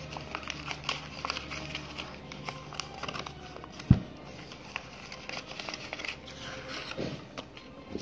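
Sheet of paper rustling and crinkling as it is folded and creased by hand, with scattered small clicks and one sharp thud about four seconds in.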